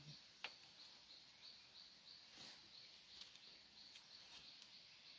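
Near silence: faint outdoor ambience with a soft, high chirp repeating evenly about twice a second, and a light click about half a second in.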